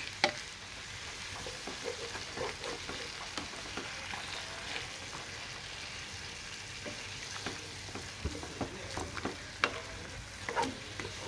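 Chopped chicken and sausage sizzling in a frying pan of onion and tomato while being stirred, with steady hiss and a utensil clicking and knocking against the pan now and then.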